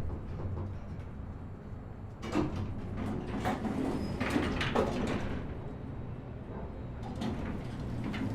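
Elevator running with a steady low hum, its doors sliding with a cluster of clunks and rattles about two to five seconds in, and another clunk near the end.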